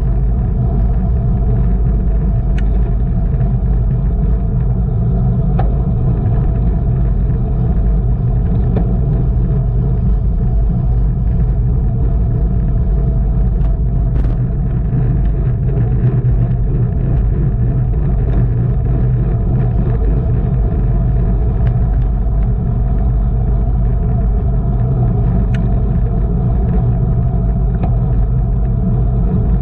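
Steady, loud wind rumble on the microphone of a racing bicycle moving at speed, with a few faint sharp clicks.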